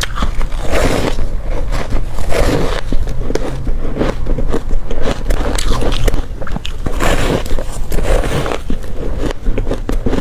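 Bites into hard crushed ice, close to the microphone: dense crackling crunches that swell in several louder bursts.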